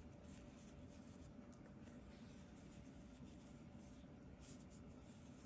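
Near silence, with faint rustling and scratching of yarn drawn over a metal crochet hook as linen stitches are worked, a little more audible about four and a half seconds in.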